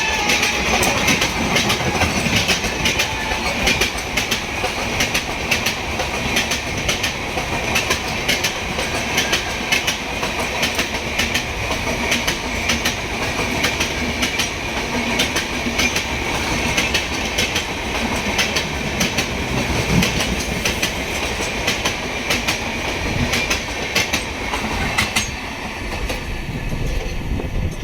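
Passenger train coaches rolling past, wheels clattering over rail joints in a steady run of clicks.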